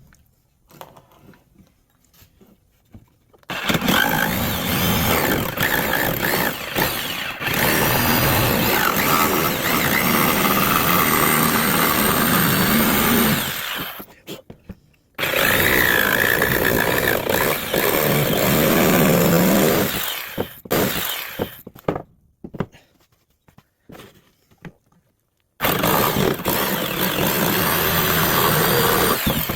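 Electric power saw cutting through a 2x6 wooden board, in three long runs of about ten, six and four seconds, each starting and stopping abruptly.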